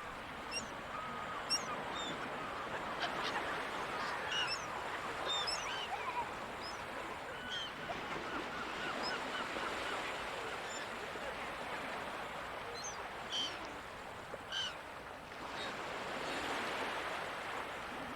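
Many gulls calling in short, scattered cries over a steady wash of ocean surf; the surf swells briefly near the end.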